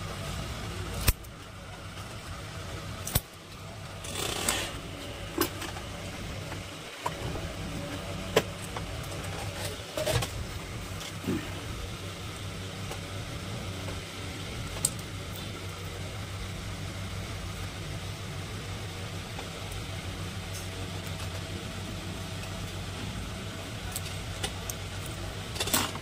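Scattered sharp metallic clicks and taps of hand tools, tin snips and a screwdriver, being worked on a fan coil, over a steady low hum.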